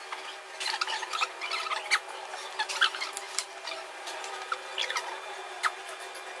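A man chewing food, with scattered sharp clicks and short squeaky chirps from his mouth and utensils.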